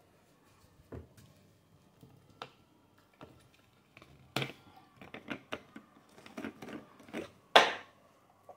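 Scattered knocks and clatters of household things being handled at a kitchen sink, thickening into a quick run of them from about halfway, with the loudest knock near the end.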